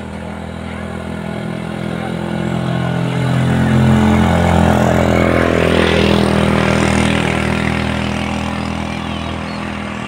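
An engine passing by: it grows louder to a peak around the middle, its pitch dropping as it goes past, then fades away.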